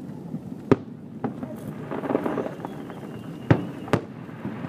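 Aerial firework shells bursting with sharp bangs: one about a second in, then two close together near the end, over a low murmur of crowd voices.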